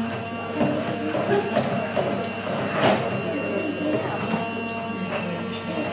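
Electric stick blender running in a glass bowl of runny mixture, a steady motor hum, with a single knock about three seconds in.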